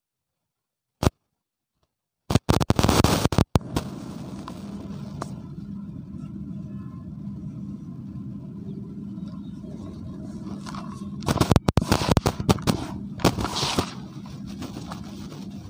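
Harsh crackling bursts from a damaged microphone as hands squeeze and press dry grey powder: one sharp click about a second in, a loud crackling stretch a little after two seconds, and another near the end. Between them, a steady hiss with a low hum.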